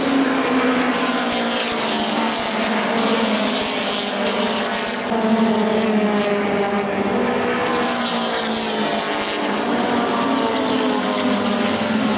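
A pack of touring race cars racing past at speed, several engines at once, their pitch rising and falling through the gears as the cars go by one after another.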